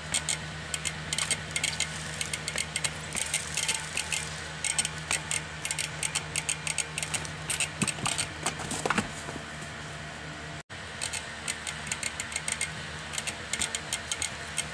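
Trials unicycle hopping across rocks: rapid irregular clicking and rattling of the wheel and frame on stone, over a steady low hum. The sound drops out for an instant about two-thirds of the way through.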